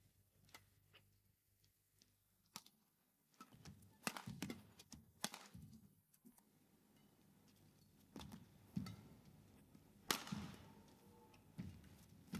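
Badminton rackets striking a shuttlecock back and forth in a rally, sharp clicks a second or so apart, with players' feet thudding on the court. The loudest hit comes about ten seconds in.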